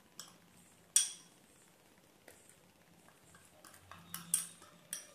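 Light clinks of a small glass spice bowl knocking against a stainless steel mixing bowl as ground spice is tipped and tapped out, with one sharper clink about a second in and a quick run of clinks near the end.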